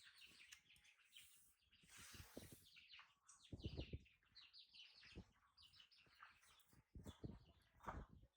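Faint, high-pitched chirping calls repeated throughout, with a few soft low thumps in between.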